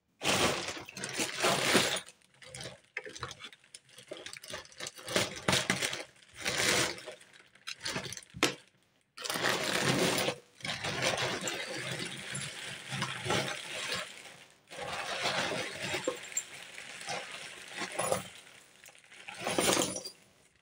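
Black plastic bin bag rustling and crinkling in repeated bouts as it is handled, with jewellery clinking as it is tipped out of the bag onto the table.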